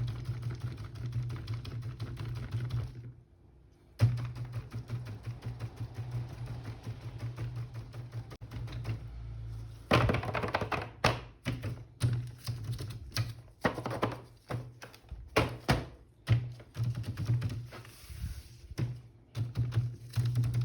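Clicks and taps of hard plastic being handled, sparse at first and coming thick and irregular from about halfway, over a steady low hum. The sound drops out for about a second a few seconds in.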